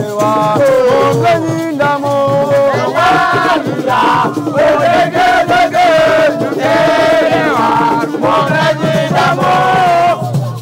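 Voices singing a call-and-response-style chant over music, with held and sliding sung notes throughout.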